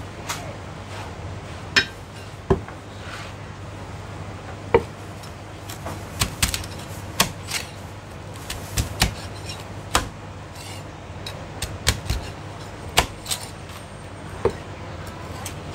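Cleaver chopping crispy roast pork belly on a thick wooden chopping block: a string of sharp, irregular chops, some in quick pairs, others a second or more apart, over a steady low hum.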